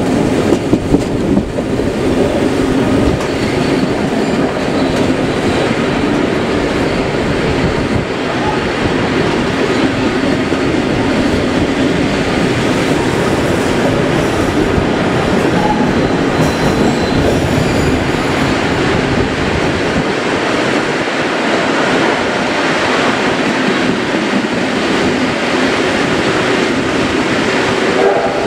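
A train running on the rails: a steady loud rolling noise, with a few sharp knocks about a second in.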